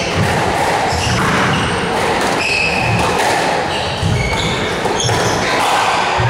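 Squash rally: the ball thudding off rackets and the court walls, with short squeaks of players' shoes on the wooden floor.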